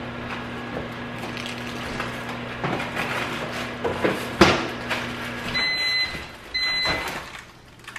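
Microwave oven running with a steady low hum, a sharp knock about four seconds in, then the hum stops and the microwave beeps twice as its cycle ends.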